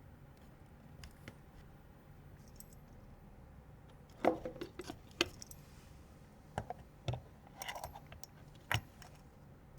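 Small hard parts clicking and clinking as they are handled during PC assembly: a scatter of short, sharp taps and light metallic clatter starting about four seconds in, with the loudest tap near the end.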